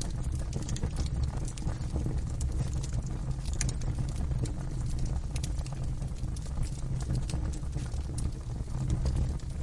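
Wood fire burning in a fireplace: frequent irregular crackles and pops over a low, steady rumble of the flames.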